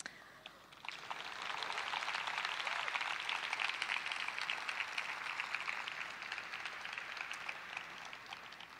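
Audience applauding: a dense patter of clapping that swells about a second in and slowly fades toward the end.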